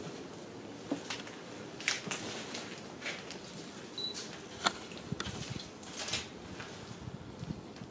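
Quiet footsteps over a floor strewn with debris, with scattered irregular crunches and sharp taps against a low, steady room hum.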